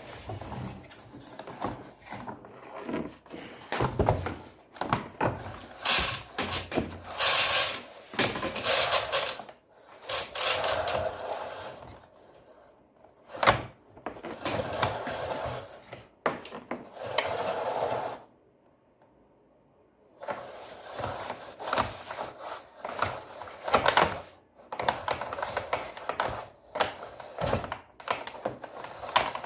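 Irregular clicks, knocks and rubbing from handling a disassembled vacuum cleaner's parts and power wire while testing it, with a pause of about two seconds near two-thirds through.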